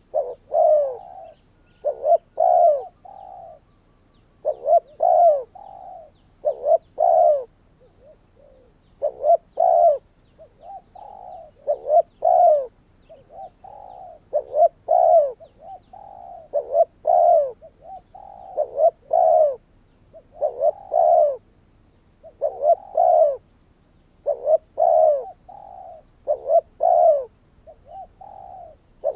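Spotted dove cooing its song over and over, a short phrase of a few low coos roughly every two seconds.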